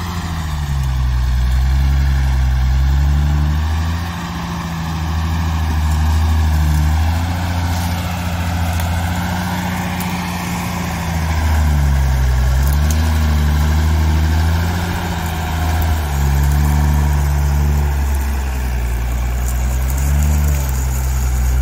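Shaktiman 4x4 diesel truck, loaded with firewood, driving slowly over a rough off-road track. Its engine runs steadily under load, the pitch dipping and rising again several times.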